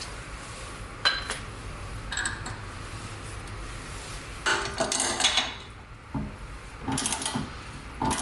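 Metal wrench and bolt clinking and rasping as a thick bolt is gradually tightened to force a Toyota Prius rear hub assembly off its knuckle. There is a sharp clink about a second in and another about two seconds in, then two longer bursts of metallic rasping, one in the middle and one near the end.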